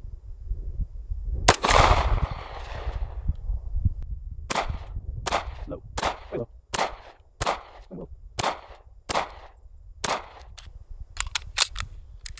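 Sig Sauer P226 Legion SAO 9mm pistol fired in slow, steady single shots: about nine sharp reports, one every second or so, each trailing a short echo. A few lighter clicks follow near the end.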